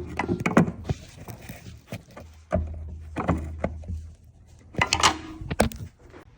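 Scattered metallic clicks, knocks and clinks as the old gear shifter arm and hand tools are worked loose beneath the car, with a low hum for about a second and a half partway through.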